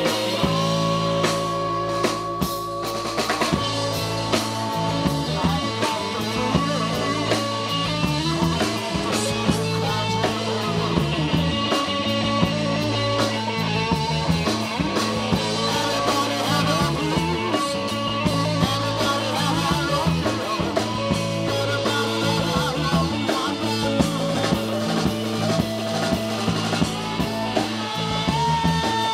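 Live band playing rock-style music on drum kit and guitar, with held guitar notes over a steady drum rhythm.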